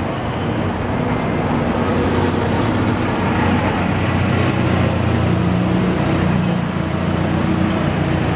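Busy city street traffic: a large vehicle's engine runs close by, its low steady hum growing stronger about halfway through, over the general rumble of cars.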